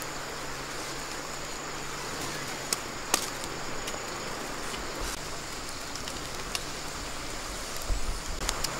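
Small wood fire burning under a bamboo grill rack, crackling with a few sharp pops scattered through and a small cluster near the end, over a steady hiss.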